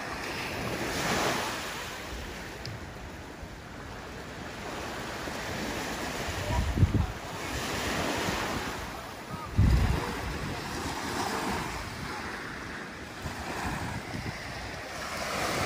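Small waves washing onto a sand and pebble beach, swelling and falling back every few seconds. Wind gusts on the microphone twice, as brief low rumbles.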